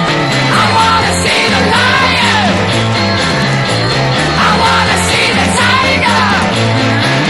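Rock music: a band playing, with a lead voice or instrument gliding up and down in pitch over a steady, stepping bass line.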